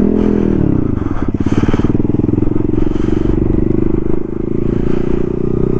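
Honda Grom's small single-cylinder engine running under throttle while riding. Its pitch drops within the first second, then holds fairly steady.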